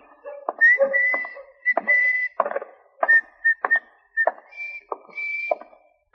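Someone whistling a simple tune in short phrases while walking, with steady footsteps striking about every half second underneath.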